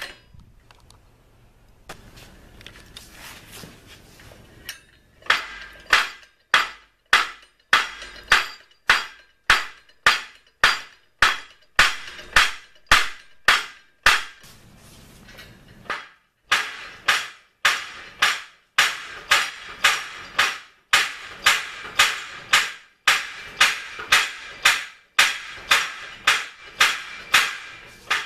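Homemade spring-assisted power hammer, turned by hand at its crankshaft pulley, its hammer head striking the anvil in sharp metallic blows with a brief ring, about two a second. The blows begin about five seconds in and break off for a couple of seconds midway.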